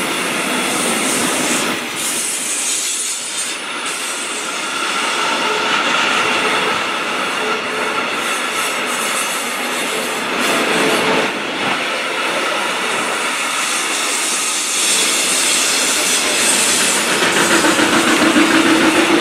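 Long freight train of container and tank-container flat wagons rolling past: a steady rumble and rattle of steel wheels on rail, with clatter over rail joints and a thin wheel squeal at times.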